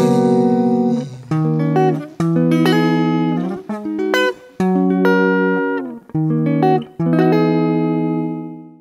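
Electric guitar played alone as the song's closing outro: a slow run of about eight chords, each struck and left to ring for about a second. The last chord fades away near the end.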